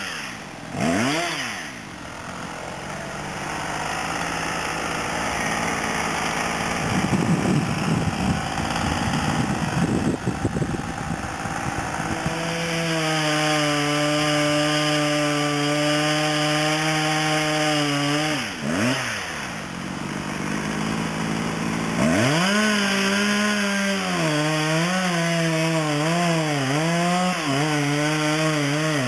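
Husqvarna 372XP two-stroke chainsaw running at high revs as it cuts into an oak trunk. The throttle drops and comes back briefly about two-thirds of the way through, and near the end the pitch wavers up and down as the chain loads up in the wood.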